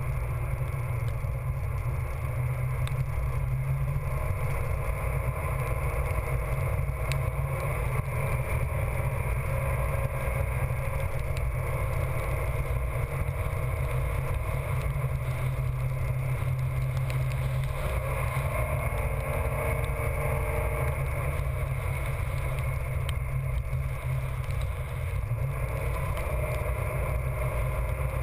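Steady rush of wind buffeting the microphone over the running noise of a chase vehicle driving fast across wet beach sand, with a low hum underneath.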